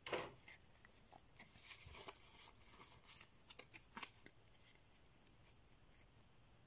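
Faint rustling and light clicks of a stack of Pokémon trading cards being handled and shuffled in the hands, mostly over the first four seconds or so.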